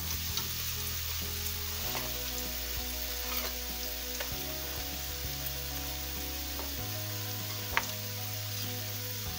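Onions frying in oil in a pan, giving a steady sizzling hiss. A single sharp click near the end is a knife on the plastic cutting board.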